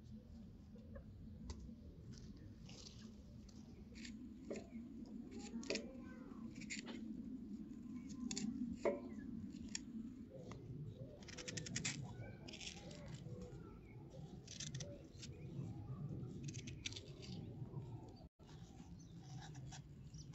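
Kitchen food-preparation sounds: irregular light clicks, taps and short scraping or cutting noises from utensils handling food, over a low steady room hum.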